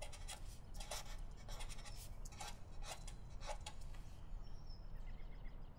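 Felt-tip marker writing on paper: a string of faint scratchy strokes over the first three and a half seconds, then only a faint low hum.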